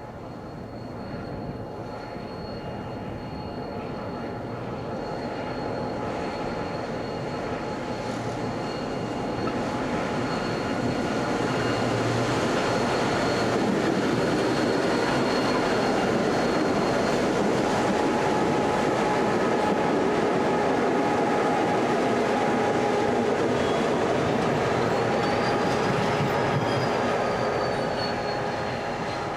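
Two diesel-electric locomotives, BL30 and X48, running light engine and drawing closer, their engines getting louder over the first dozen seconds, then holding steady and easing off slightly near the end. High thin wheel squeal rides over the engine sound, with one squeal rising and falling a few seconds before the end.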